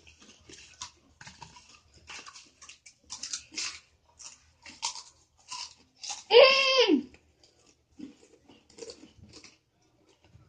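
Hot Cheetos and Takis being chewed with crisp, crackly crunches. About six seconds in, a boy lets out one loud cry that falls in pitch, then a few faint crunches follow.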